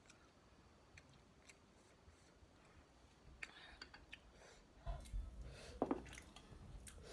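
Metal fork scraping and clinking against a glass bowl as noodles are twirled, faint at first, with a few louder clinks and knocks about five to six seconds in.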